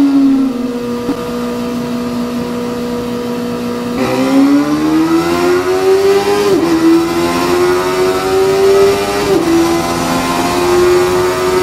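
Honda CB400 Super Bol d'Or's 400 cc inline-four: the revs fall away and hold steady for a few seconds, then the engine pulls hard at full throttle, climbing in pitch through the gears, with two quick upshifts that each briefly drop the note.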